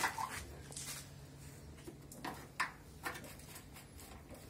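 Scattered clicks and knocks of hands working on a washing machine's opened cabinet and its plastic and sheet-metal parts, the sharpest right at the start and about two and a half seconds in.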